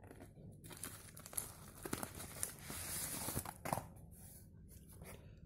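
Plastic bubble mailer crinkling and rustling as it is handled and opened: faint, irregular crackles and scattered short clicks.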